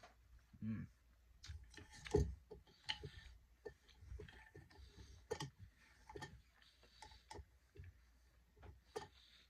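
A person eating and chewing: scattered small clicks and mouth smacks, with a louder knock about two seconds in.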